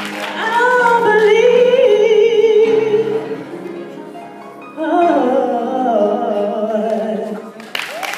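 A woman singing solo into a microphone: two long phrases of held notes with vibrato, the last phrase of her song. Applause breaks out right at the end.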